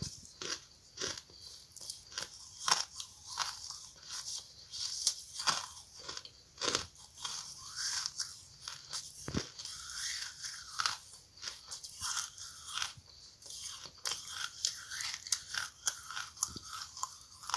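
A person biting and chewing charcoal: a continuous run of sharp, irregular crunches in quick succession.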